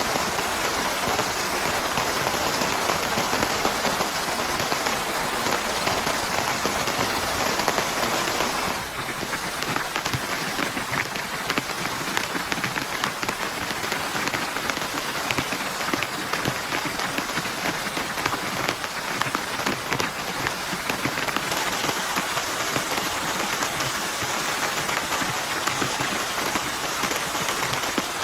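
Heavy rain falling steadily, a dense patter of drops; it becomes a little quieter about nine seconds in.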